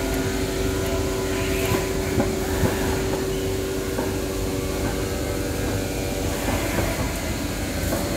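CNC flatbed knife cutting machine running while it cuts blinds fabric: a steady mechanical hum with a held tone and a few faint clicks.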